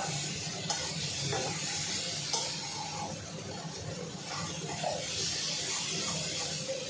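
Spiced food frying and sizzling in an aluminium kadai as a metal spatula stirs it, with a few light clicks and scrapes of the spatula against the pan.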